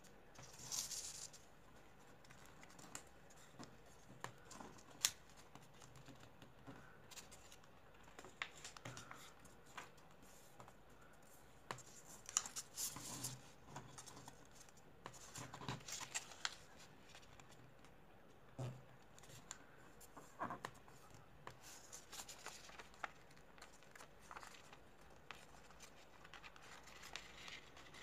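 Faint rustling and crinkling of paper being folded and creased by hand, in scattered short bursts with sharp ticks as the folds are pressed down.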